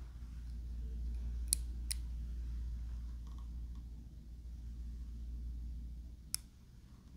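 Ray-Ban Clubmaster sunglasses being handled, with small sharp clicks from the frame and hinges: two close together about a second and a half in and one more near the end, over a steady low hum.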